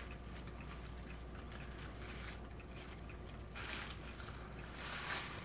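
Quiet kitchen background: a steady low hum under a faint hiss, which swells briefly a little after the middle and again near the end.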